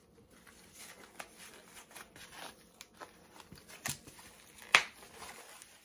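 Rustling and handling of a black leather bag strap as its white protective wrapping is pulled off, with several sharp clicks, the loudest about three-quarters of the way through.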